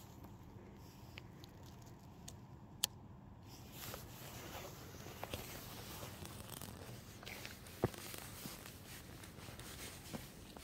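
Faint handling noise: scattered clicks and rustles over a low, steady background, with two sharper clicks about three seconds and eight seconds in.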